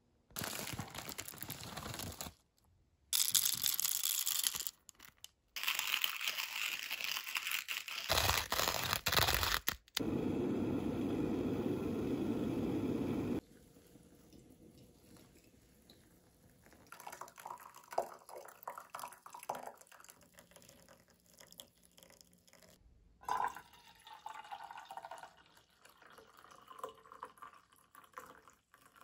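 Hot water poured in a thin stream from a gooseneck kettle onto coffee in a mesh pour-over filter, then brewed coffee poured from the glass carafe into a mug. The first half holds several loud stretches of steady rushing noise that start and stop abruptly.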